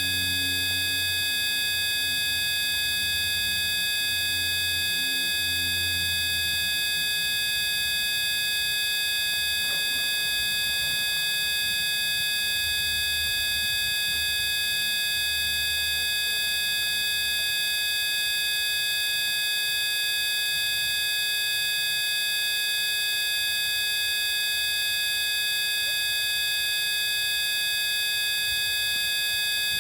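A steady electronic drone of several pure sine tones at fixed pitches, held unchanging throughout, of the kind used as a synthesized healing-frequency track. A faint low hum comes and goes underneath.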